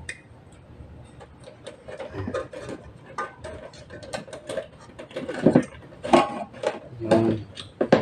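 Clicks, taps and knocks of a plastic 3-way wall switch and its wires being pushed into a metal electrical box and seated on its mounting plate. The knocks grow louder and come thicker over the last few seconds.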